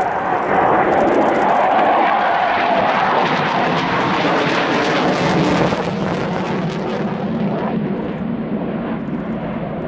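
A Panavia Tornado's twin RB199 turbofan engines make a loud, steady jet rumble as the aircraft turns past with its afterburners lit. The high hiss fades about seven seconds in as the jet flies away.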